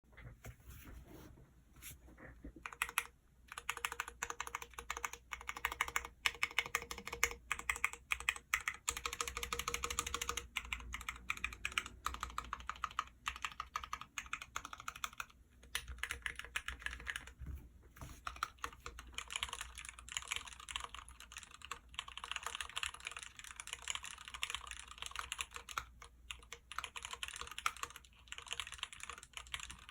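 Typing on an OTD Koala replica custom mechanical keyboard with Cherry MX Black linear switches. A fast, continuous stream of key clacks, with a few sparser strokes in the first couple of seconds.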